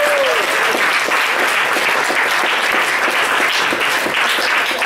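Comedy club audience applauding steadily.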